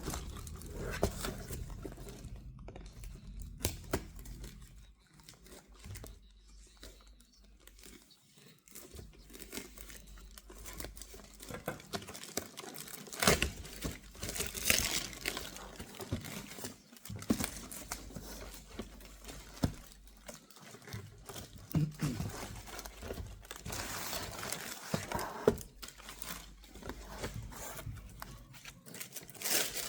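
Shoe packaging being handled and opened: wrapping crinkling and tearing in irregular rustling bursts, with small clicks and knocks.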